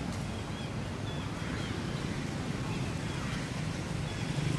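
Steady outdoor background rumble, like wind on the microphone, with a few faint short high chirps scattered through it.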